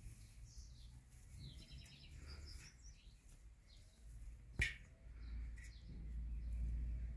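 Outdoor ambience with small birds chirping faintly in the background, a single sharp click about four and a half seconds in, and a low rumble that swells toward the end.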